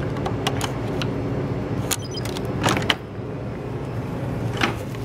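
Hotel room key-card lock and door being opened: a few sharp clicks as the card goes in and the handle is worked, a short run of high ticks from the lock about two seconds in, then a louder clatter of the latch and door just before three seconds. A steady low hum runs underneath.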